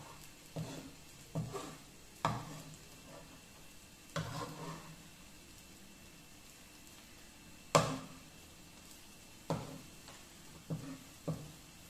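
Black slotted plastic spatula knocking and scraping against a non-stick frying pan as a thin egg omelette is pushed and turned, about eight separate strikes, the loudest a little past halfway. A faint sizzle of the egg frying underneath.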